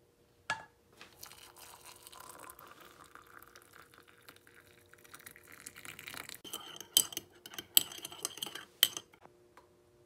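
Water poured into a ceramic mug for tea, then a metal teaspoon clinking sharply against the mug's rim and sides, with three loud clinks near the end. A single knock comes about half a second in.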